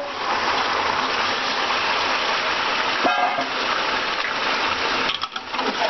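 Yogurt-marinated chicken sizzling steadily as it goes into hot oil and fried onions in a steel pot. A brief pitched tone sounds about three seconds in.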